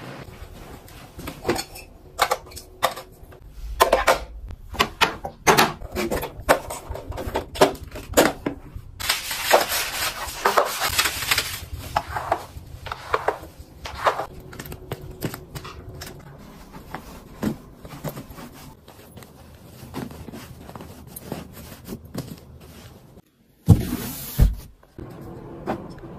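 Household objects being handled: a run of separate clicks, knocks and clatters. About ten seconds in there is a stretch of steady hiss, and two louder knocks come near the end.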